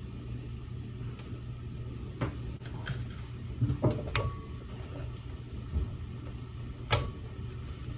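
A few light knocks and clatters of a plastic colander full of drained rice being shifted against a pot in a steel sink, at about 2, 3, 4 and 7 seconds in, over a steady low hum.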